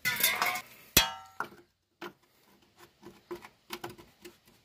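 Steel hand tools clinking, with one sharp ringing clang about a second in, then a few light metallic taps as an open-end spanner is set onto a bolt.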